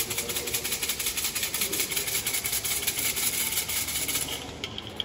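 Siam si fortune sticks rattling in their cylinder as it is shaken fast, about ten clatters a second, to make one numbered stick fall out. The rattling stops about a second before the end.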